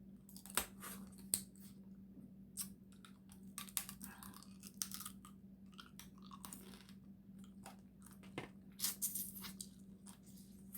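Close-miked chewing and eating of Dungeness crab, with scattered short crunches and clicks, over a steady low hum.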